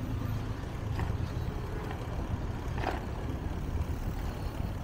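Steady low rumble of wind buffeting the microphone while riding a bicycle.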